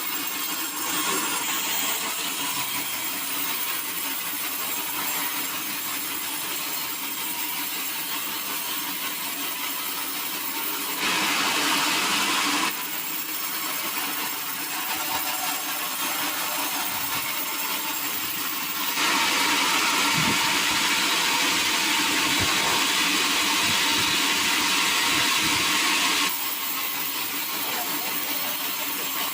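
Sawmill saw running and cutting through wood, with two louder stretches where the blade is in the cut: a short one about a third of the way in and a longer one of about seven seconds past the middle.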